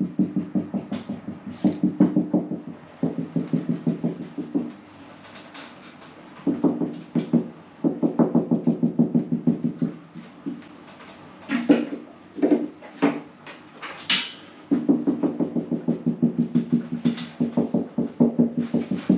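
Fibreglass cable rods being pushed up through a hole in the ceiling void, rattling and knocking in quick runs of taps, several a second, with short pauses between pushes.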